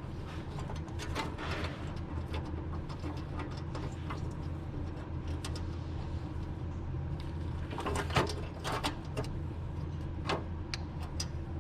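A few sharp metallic clicks and clinks of small hardware being handled while a cover is fitted with washers and screws: one about a second in, a cluster around eight seconds and one near ten seconds, over a steady low hum.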